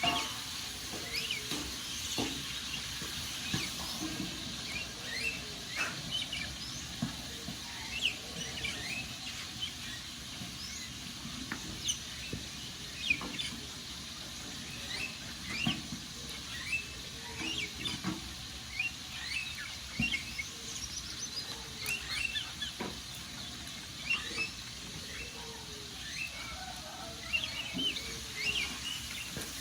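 Wood fire crackling, with sharp pops scattered over a steady hiss, while birds chirp throughout in many short, quick calls.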